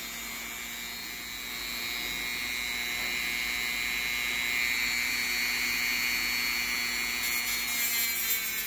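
Handheld rotary tool with a sanding drum running steadily with a high whine, grinding into a silver ring worn on a finger to cut a groove in the band so the stuck ring can be removed. It gets a little louder about two seconds in.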